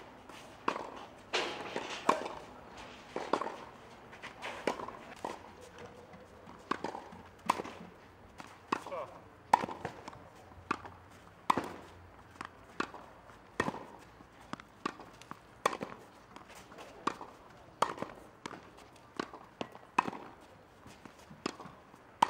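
Tennis rally on a clay court: sharp racket strikes on the ball and the ball bouncing on the clay, about one hit every second, some loud and near, some softer from the far end.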